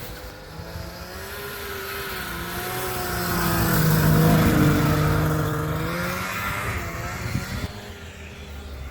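Snowmobile engine passing by at speed: it grows steadily louder to a peak a little under halfway through, then fades away.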